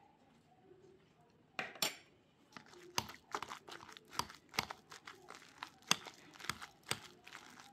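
Wire potato masher working soft cooked potatoes in a ceramic bowl: repeated squishing strokes with sharp clicks of the metal against the bowl, about two or three a second, starting about a second and a half in.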